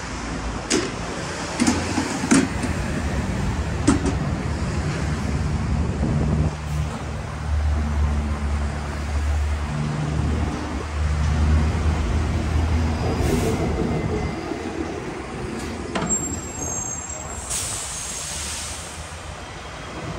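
City street traffic: a vehicle engine running loudly with its pitch stepping up and down through the middle, a few sharp clicks in the first few seconds, and a brief high squeal followed by a burst of hiss near the end.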